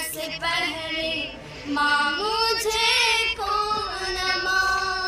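A high voice singing a song, with long held notes, gliding pitch and a wavering note about three seconds in.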